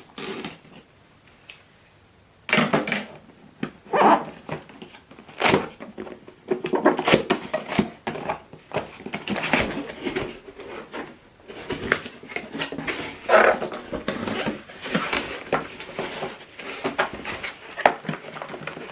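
A soundbar's cardboard box and packaging being opened and unpacked by hand: irregular rustling, scraping and bumping, starting about two and a half seconds in.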